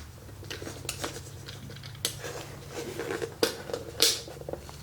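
Light clicks and taps of a small plastic quartz clock movement being handled to check that it runs, at uneven intervals, the sharpest about four seconds in.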